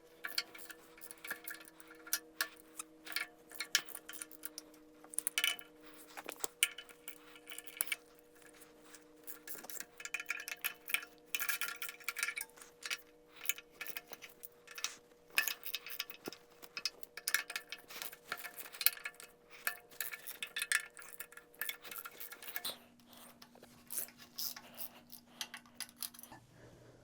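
Faint metallic clicking and clinking of hand tools working on the engine's manifold bolts, in irregular rapid runs of clicks.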